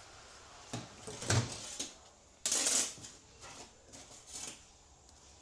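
Metal transmission parts being handled on a workbench: a few sharp clinks and knocks, then a short louder scrape about halfway through, followed by lighter clicks.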